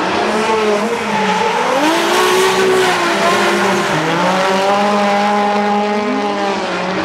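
Two drift cars sliding through a corner in a tandem run: the engines rev at high rpm, their pitch rising and falling with the throttle, over continuous tyre squeal.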